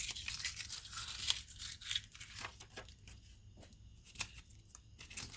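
Paper rustling and crackling as it is sliced with a sharp folding-knife blade in a sharpness test, busy for about three seconds, then quieter with a few small clicks near the end.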